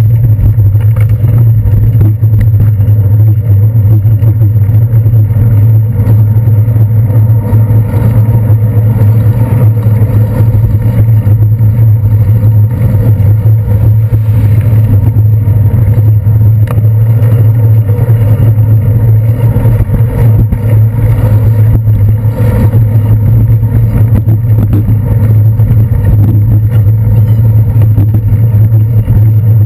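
Loud, steady low rumble of a bicycle ride on a wet city street, heard through a handlebar-mounted GoPro Hero 2, with buses, a truck and taxis moving close alongside.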